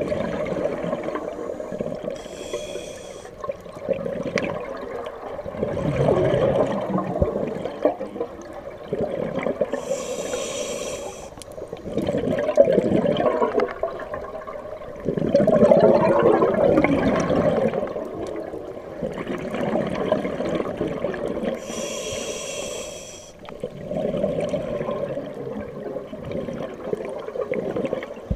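Scuba diver breathing through a regulator underwater: three short hissing inhales, with long bubbling, gurgling exhales between them.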